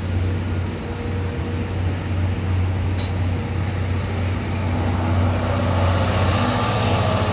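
Train running with a steady low hum. There is a sharp click about three seconds in, and a broad rushing noise builds from about five seconds on.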